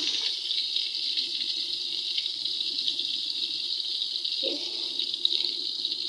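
Tortang talong (whole eggplant in beaten egg) frying in hot oil in a wok: a steady hiss of sizzling, with a short knock about five seconds in as metal tongs shift the eggplant.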